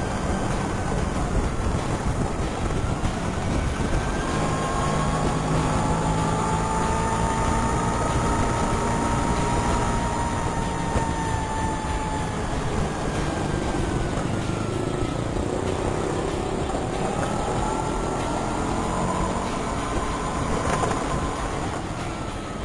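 Vespa scooter running with a siwingan whistle on its exhaust, giving a wailing, siren-like tone that slowly rises and falls over the engine's rumble.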